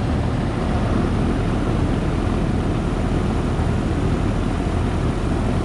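Trane heat pump outdoor unit running, its newly replaced condenser fan motor spinning the fan: a steady rush of air over a low hum.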